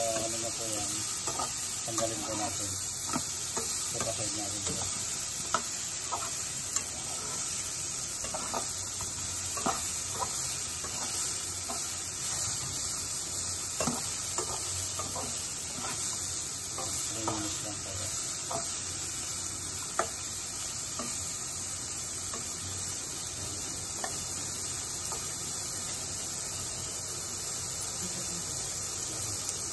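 Broccoli and garlic sizzling in hot oil in a nonstick pot, with a steady hiss, while a slotted spatula stirs them, scraping and tapping against the pan now and then.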